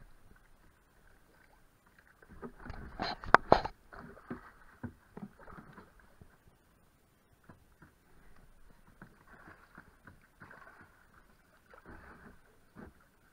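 Canoe paddle strokes: the blades dip and splash in a shallow running river, with a faint rush of water and scattered small knocks against the canoe. A louder burst of splashing with a sharp knock comes about three seconds in.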